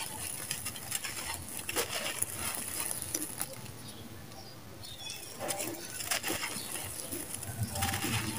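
Handfuls of dry, gritty red sand-cement crumble sifting from the hands and pattering onto a loose pile, with lots of tiny grainy crackles. The sound eases off briefly around the middle and picks up again as more is scooped and poured.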